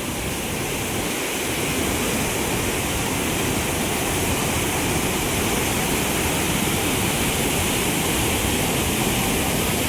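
Floodwater rushing through the open gates of a dam, loud and steady. The water is fast and churning from all ten gates being open after heavy rain.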